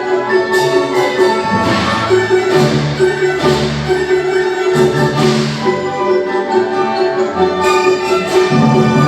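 Instrumental ensemble music with bowed strings and mallet percussion, steady and lively, punctuated by several sharp crashing accents.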